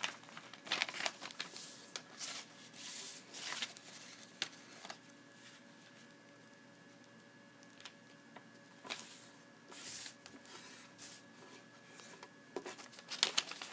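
A sheet of paper rustling and rubbing against a wooden tabletop as it is folded and creased by hand, in irregular short bursts with pauses between them. A faint steady electrical hum sits underneath.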